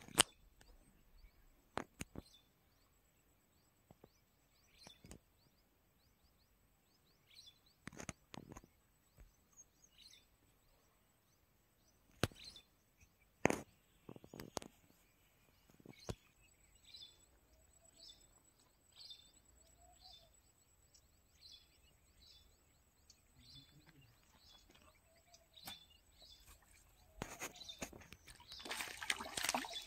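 A small bird chirping in short calls about once a second, over scattered sharp clicks. In the last few seconds a burst of splashing rises as a hooked eel thrashes at the water's surface.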